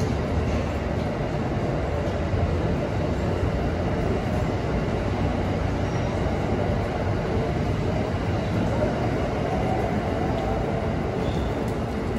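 Amtrak Northeast Regional's stainless Amfleet passenger cars rolling past on departure: a steady rumble of steel wheels on rail.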